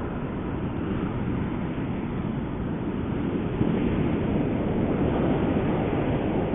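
Ocean surf washing on the shore, with wind blowing across the microphone. The surf grows a little louder about halfway through.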